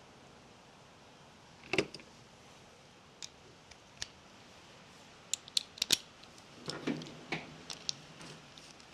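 Small metal parts and tools clicking and clinking as they are handled, with a knock about two seconds in and a quick run of sharp clicks a little past halfway.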